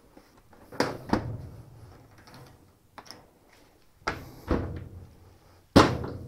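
The top panel of a washing machine being set back in place, giving several separate clunks and knocks, the loudest near the end.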